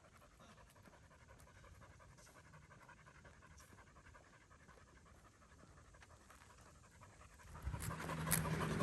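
A dog panting hard and rhythmically after a tiring walk, faint. Near the end a much louder sound with a low steady hum and clicks comes in.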